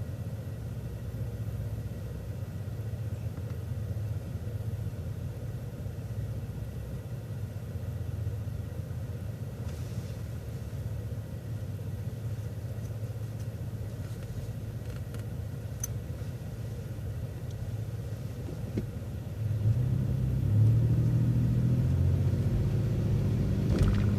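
City transit bus engine running steadily, heard from inside the bus as a low rumble; about 20 seconds in the engine note gets louder and climbs in steps as the bus pulls away under power.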